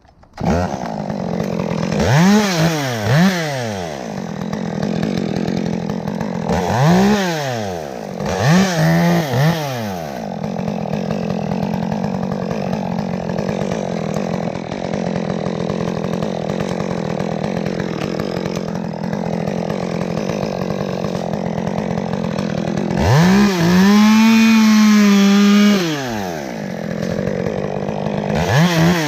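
Two-stroke chainsaw running, revved up and back down several times with idling in between, then held at high revs for about three seconds near the end.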